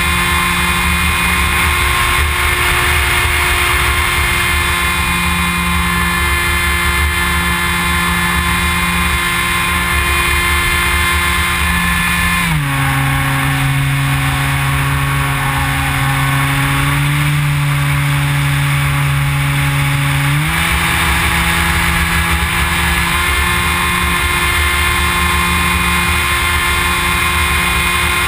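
Electric motor and propeller of a HobbyKing EPP foam FPV plane running in flight, heard from the onboard camera with wind noise. About twelve seconds in the pitch drops at once as the throttle is eased back, and about eight seconds later it steps back up to the earlier pitch.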